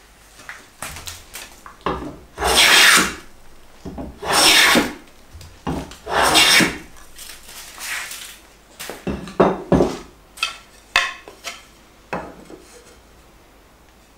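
Hand plane fitted with a heavily cambered iron taking long, rasping strokes along a rough-sawn board face, stock removal. Three loud strokes of about a second each come in the first half, then shorter, sharper ones.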